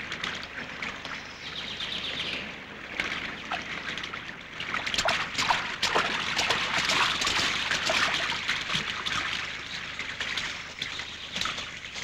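Leaves and branches rustling and crackling as someone pushes through dense undergrowth. The noise is irregular, full of small snaps, and grows louder in the middle.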